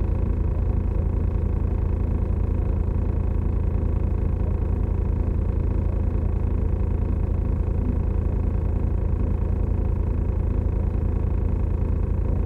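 Semi-truck's diesel engine idling steadily, a low, even rumble.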